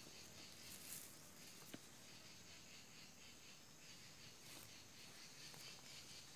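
Near silence: faint outdoor background with a couple of soft clicks as hands handle soil and freshly dug termite mushrooms.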